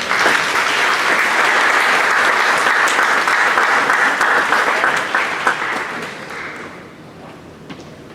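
Audience applauding in a hall, dying away in the last couple of seconds.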